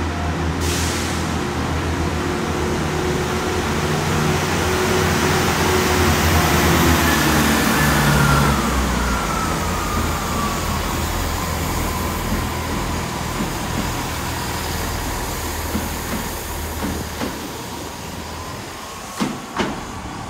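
A diesel passenger train pulls away from the platform. Its engine runs under power, loudest about seven or eight seconds in, with a whine that falls in pitch, then fades as it leaves. A few sharp clicks come near the end.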